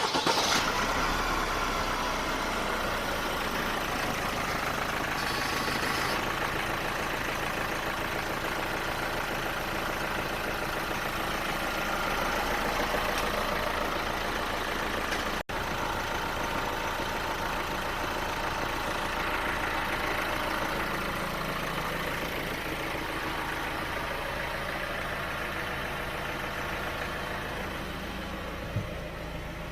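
Chevrolet 1.6 four-cylinder turbodiesel engine starting and settling into a steady idle. The shop is checking it for the timing-chain noise that the car was brought in with.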